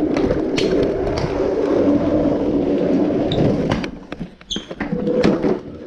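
A child's pink plastic ride-on toy car rolling across a hardwood floor, with the steady rumble of its wheels and clattering knocks and clicks. The rumble stops briefly about four seconds in, then starts again, with a couple of short squeaks.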